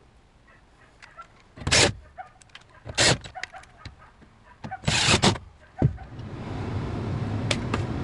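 A cordless drill running in three short bursts, then a variable-speed furnace blower motor starting up and ramping up steadily over the last couple of seconds.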